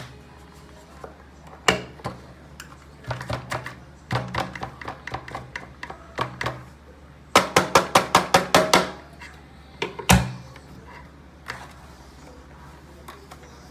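Irregular plastic clicks and knocks from a Shark vacuum cleaner being handled, with a quick run of about ten sharp clicks around the middle and a hard knock soon after.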